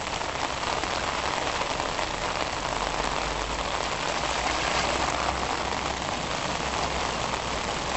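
Rain falling steadily on floodwater, an even hiss, with a faint low hum underneath for a few seconds in the middle.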